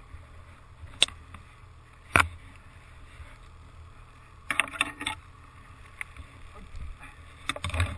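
Sled gliding through deep powder snow with a low rumble underneath. Bare branches strike the camera with two sharp snaps about one and two seconds in, and brush and scrape across it in a flurry around four and a half seconds in and again near the end.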